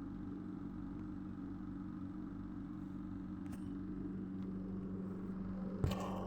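A steady hum at a fixed pitch, with a sharp knock near the end.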